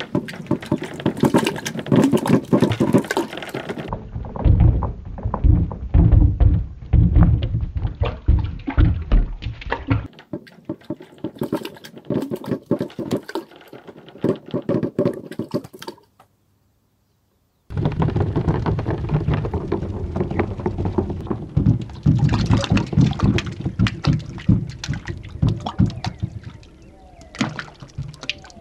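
Dragon Ball replica balls rolling down a perforated wooden chute and dropping into a water tank: a dense, continuous clatter of clacks and knocks mixed with splashing and sloshing water. The sound cuts out completely for about a second and a half just past the middle, then the clatter and splashing resume.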